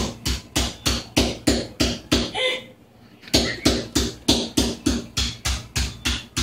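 Rapid, evenly spaced knocks, about three a second, each with a deep thump; they stop for about a second near the middle, then carry on at the same pace.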